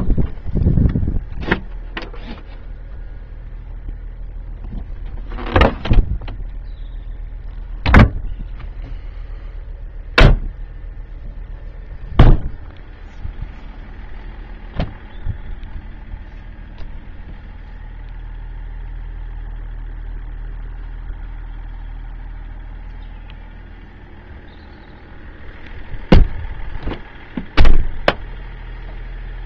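A steady low engine drone, with about a dozen sharp knocks and thumps spread through it, the loudest near the end.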